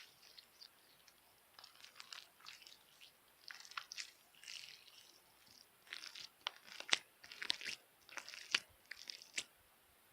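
Hard slime being squeezed and pressed by hand, giving bursts of sharp crackling clicks and pops in three groups, the loudest snaps in the last few seconds.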